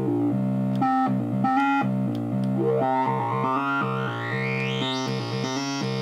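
Software synthesizer (the Rolend JP-680 VST) playing a repeating pattern of chord notes over a steady bass. A gliding tone sweeps upward from about two and a half seconds in until near the end.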